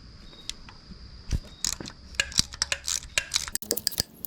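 Hand tools working on an engine's heat shield fasteners: a quick, irregular run of sharp metallic clicks and clinks, starting about a second in, with a harder knock near the end.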